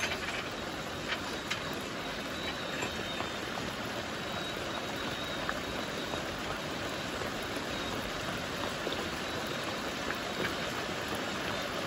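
Steady rushing of running water, a stream or river, with a few faint taps scattered through it.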